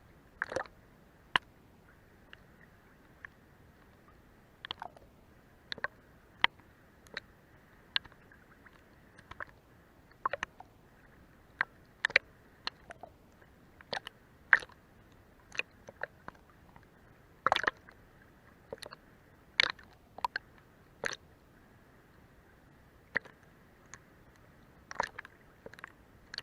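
Small waves lapping against a boat's hull: irregular short, sharp wet slaps and plops over a faint steady hiss, with a cluster of louder slaps near the middle.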